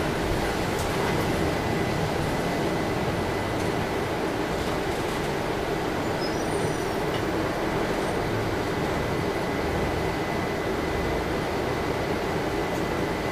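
Steady engine and road rumble of a city bus, heard from inside the passenger cabin, with a faint thin high tone running from about a second in.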